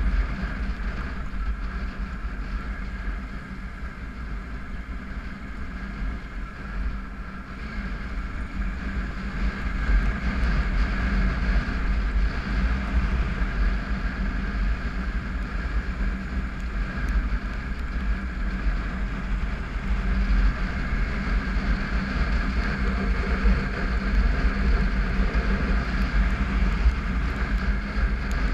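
Triumph Tiger 955i's three-cylinder engine running steadily on the move, under heavy wind rumble on the microphone. The engine eases off a few seconds in and picks up again from about ten seconds in.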